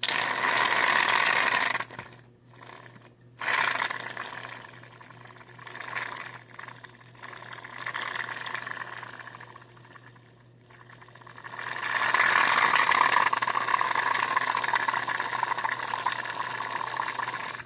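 Wet, hissing noise from slime being worked with shaving cream, loud for the first two seconds, quieter and uneven in the middle, then loud again for the last five or six seconds.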